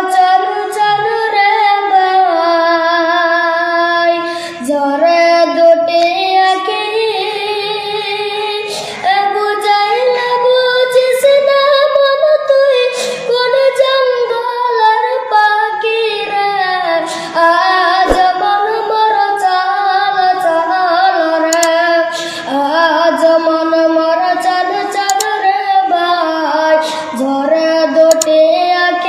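A high solo voice singing a slow, ornamented Islamic song, with long held notes that waver in pitch.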